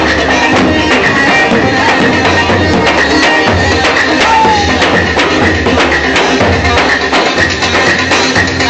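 Loud music with drums and percussion.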